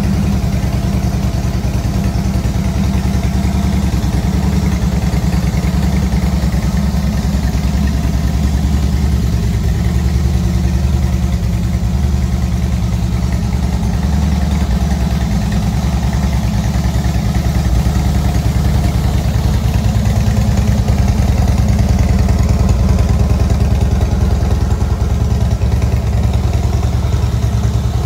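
Harley-Davidson Breakout's 1690 cc air-cooled V-twin idling steadily, with a slight swell in level about twenty seconds in.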